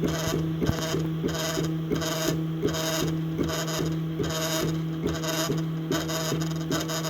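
Homemade wooden-frame 3D printer running a print job: its stepper motors give a steady hum with regular ticks and pulsing whirs, a few times a second, as the print head moves back and forth. Noisy enough that its builder calls it too noisy.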